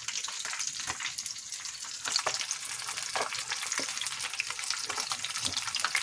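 Pieces of snakehead fish frying in hot oil: a steady sizzle with many small crackles and pops.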